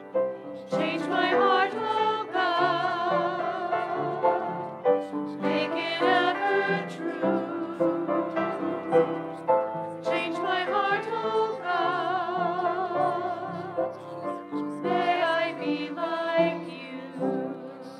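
Small church choir singing together, the voices held with a wide vibrato, in phrases that pause and start again. The singing dies away near the end.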